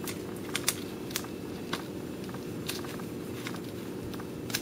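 Paper and sticky tape being handled and pressed down by hand: scattered small crinkles and ticks over a steady low hum.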